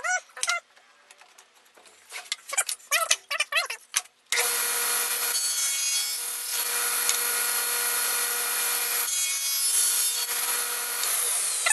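A power saw starts about four seconds in and runs steadily for about seven seconds as a wooden frame blank is cut to length against a stop, then switches off and winds down. Before it come a few short squeaks and clicks.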